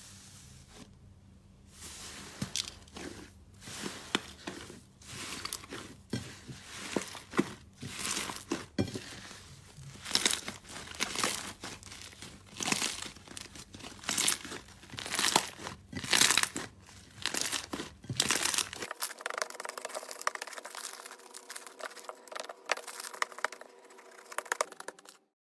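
Slime being squeezed and worked by hand: irregular crackling, crinkly pops and squelches. The sound changes about nineteen seconds in, as a different batch of slime is played with.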